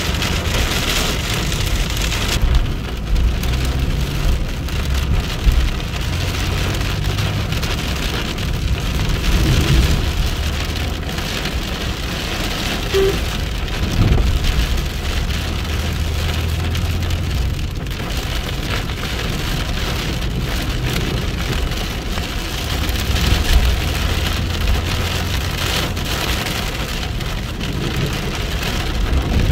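Heavy rain pouring down onto hard surfaces in a thunderstorm, a steady loud downpour with low rumbling that swells and fades several times.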